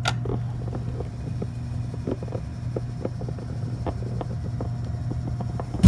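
Drink vending machine working after a selection: a steady low hum with scattered small clicks and rattles, and a loud knock right at the end.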